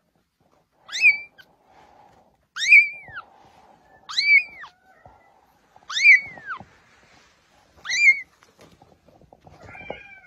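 A very young kitten mewing: five high-pitched mews, each rising and then falling, about every two seconds, with faint rustling between them.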